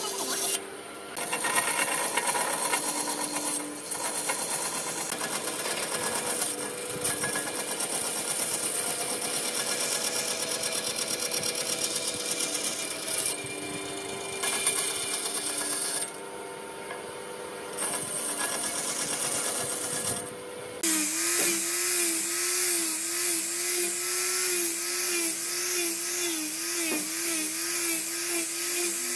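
A band saw runs and cuts through a curved piece of wood. About 21 seconds in, it gives way to a handheld disc sander, built like an angle grinder, whining steadily as it sands the wood.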